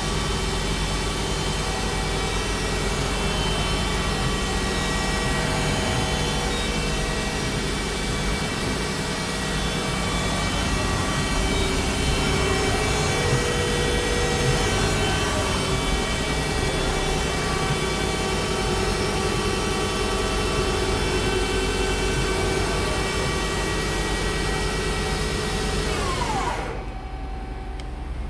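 Hyundai WIA SKT-200 CNC lathe spindle running at speed with its 8-inch chuck spinning: a steady mechanical whine made of many tones. Near the end the whine falls in pitch and the sound drops to a lower hum as the spindle slows down.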